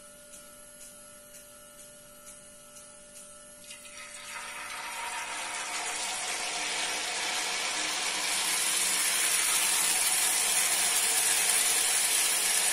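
Jalebi batter frying in hot desi ghee. The sizzling starts about four seconds in as the batter is piped into the pan, builds as more spirals go in, and then holds as a steady sizzle.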